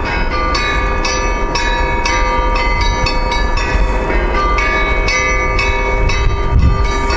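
Russian Orthodox church bells ringing: several bells struck in a quick, repeating pattern about twice a second, their tones ringing on and overlapping.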